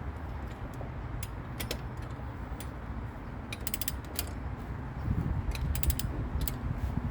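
Click-type torque wrench ratcheting as a car wheel's lug nut is tightened: scattered sharp clicks with quick runs of several clicks about three and a half and five and a half seconds in, the last nut of the wheel being brought up to torque.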